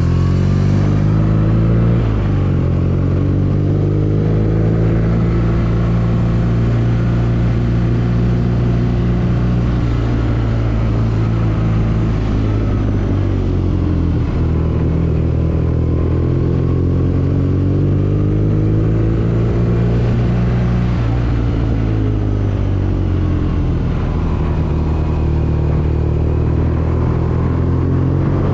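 BMW R nineT's 1170 cc air/oil-cooled boxer twin running while riding in town traffic, its pitch rising and falling gently a few times as the throttle is eased on and off.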